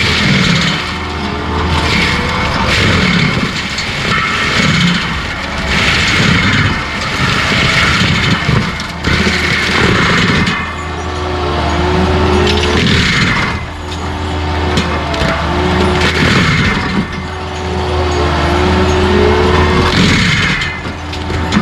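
Skid steer running under load with a forestry stump grinder/mulcher head chewing through white pine stumps. A steady engine drone dips and recovers in pitch, with repeated surges of grinding and chipping every second or two.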